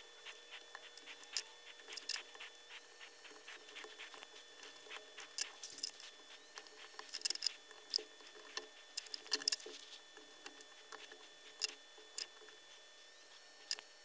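Faint, irregular small clicks and taps of soldering tools (iron tip, tweezers, wire) against a perfboard and its component leads during hand-soldering rework, over a faint steady background hum.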